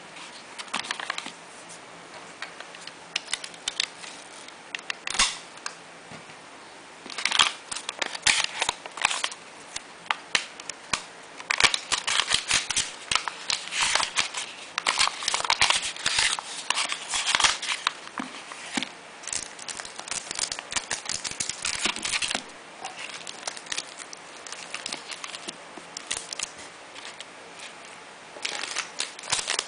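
Paper and clear plastic packaging bags crinkling and rustling as hands fold and handle them, in bursts of sharp crackles that are busiest in the middle stretch.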